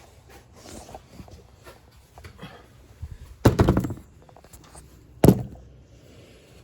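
Objects being handled: a clattering rattle lasting about half a second, three and a half seconds in, then a single sharp knock about a second and a half later.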